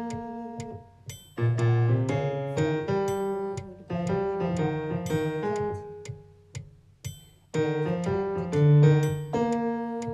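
Keyboard playing an accompaniment of struck chords and melody notes in short phrases, with brief breaks between them.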